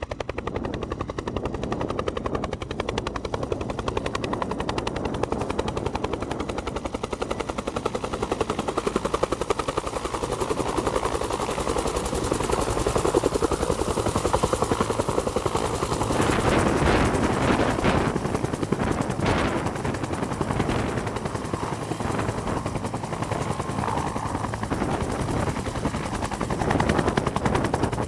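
Bell UH-1 Huey helicopter flying low and hovering, its two-bladed main rotor beating in a fast, steady chop. The sound swells louder and brighter a little past the middle as the helicopter comes closer.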